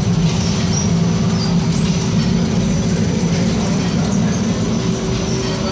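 Pita bread production line running: the tunnel oven and wire conveyors give a steady, loud machine drone with faint steady hums above it.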